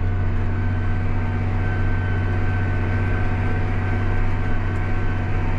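John Deere 8300 tractor's six-cylinder diesel engine running steadily under load in the field, an even drone with a faint steady high whine above it.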